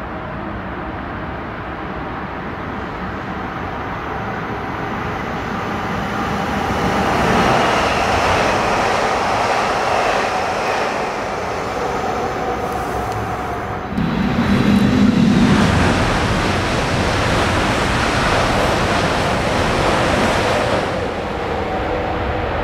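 Electric trains running on a high-speed line: a DB class 1440 S-Bahn multiple unit and then an ICE 3 high-speed train. A steady rushing of wheels and air swells about seven seconds in and jumps up suddenly about fourteen seconds in.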